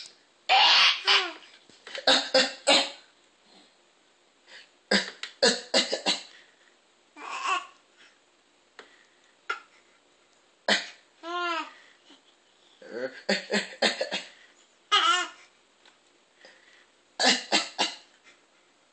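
Harsh coughing in repeated fits, each a quick run of several coughs with pauses between, mixed with voiced laughter.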